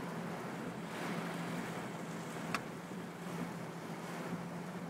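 Vehicle pushing slowly through floodwater: a steady wash of water around the front over a low, even engine hum, with one brief sharp click about halfway.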